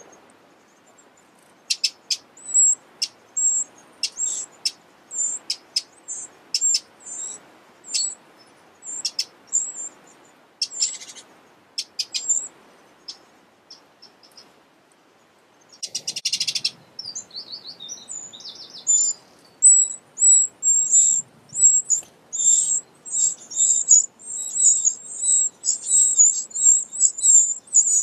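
Eurasian wren nestlings in the nest giving high, thin begging cheeps: scattered at first, then a short dry rattle about halfway through, then a fast, nearly continuous chorus of calls over the last several seconds.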